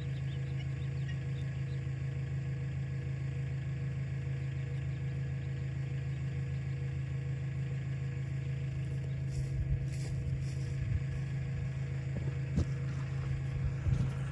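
Tractor engine running steadily while driving a skid winch, with a few short knocks and clatters in the last few seconds.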